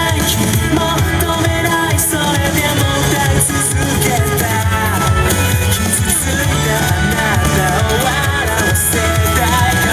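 Loud pop music with a singing voice over a steady bass and drum beat, played as accompaniment for a group dance.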